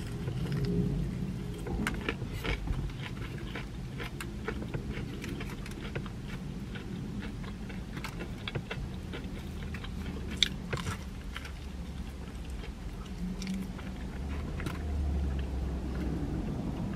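Close-up biting and chewing of crispy fried chicken, with many small crunches and mouth clicks. A low rumble runs underneath and swells near the end.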